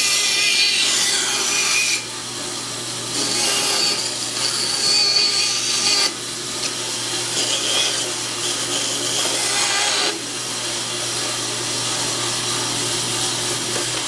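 Bandsaw running and rough-cutting a wooden blank into a circle. The cutting noise swells and eases as the wood is fed over a steady motor hum, with short lulls about 2, 6 and 10 seconds in.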